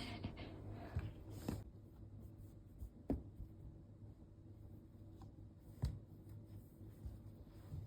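Faint rubbing and rustling, likely from hands and a cat's paws, with a few soft, sharp taps about a second and a half, three and six seconds in.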